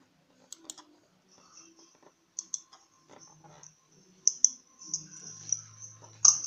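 Sharp clicks in quick pairs, about every two seconds and loudest near the end, from clicking at a computer, over a faint steady high hiss.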